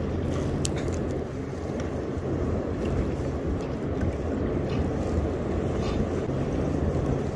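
Steady rush of wind on the microphone and choppy river water lapping close by, with a few faint clicks.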